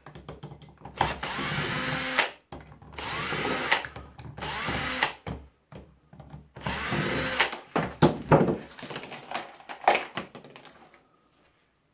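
Power drill running in several short bursts of a second or two each, its motor pitch bending as it backs screws out of a fan's housing to reach the motor. Then a run of knocks and rattles as loosened parts are handled.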